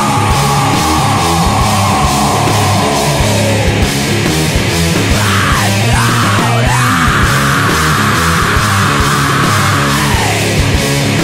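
Loud stoner metal/punk recording: heavy distorted guitars and drums. A high line slides slowly down in pitch over the first few seconds, then bends up and down, holds a high note, and falls away near the end.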